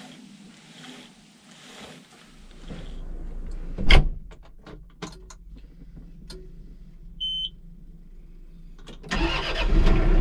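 Inside a tractor cab: the cab door slams shut about four seconds in, followed by several switch and lever clicks and a short electronic beep. The tractor engine then starts about nine seconds in and runs steadily at idle.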